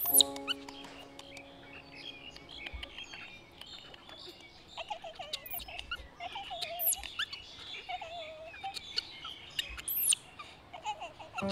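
Baby macaque crying: thin high-pitched squeals and chirps, with wavering whimpering cries in the middle and a few sharper, louder screeches, the loudest about ten seconds in.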